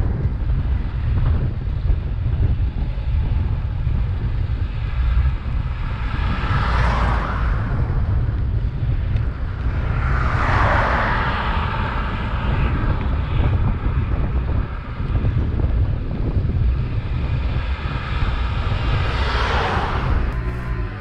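Wind buffeting the microphone while riding along a road, a steady low rumble. Three cars pass with a rising and falling rush of tyre and engine noise: one about a third of the way in, another soon after, and a third near the end.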